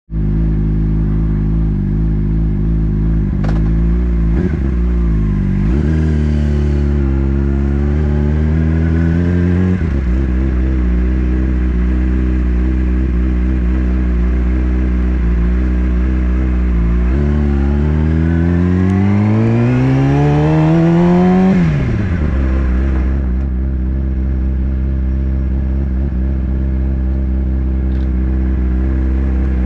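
Sport motorcycle engine, heard close from a camera mounted on the bike, running at low speed through the paddock. The revs climb twice, around six to ten seconds in and again from about seventeen to twenty-one seconds, each time dropping sharply back to a steady idle.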